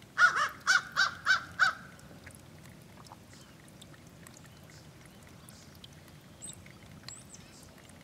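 Crow cawing about six times in quick succession, then falling silent, over the faint trickle of a small stream.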